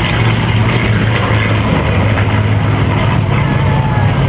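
Piston-engined WWII fighters, a P-38 Lightning and a P-51 Mustang among them, flying past in formation: a steady engine drone with a deep, even hum.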